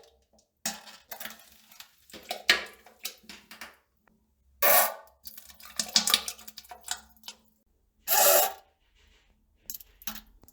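Toilet sounds: a run of short, irregular bursts of noise with clicks between them, the two longest about half a second each, a little before halfway and past two-thirds of the way through. They are farts and poop plopping.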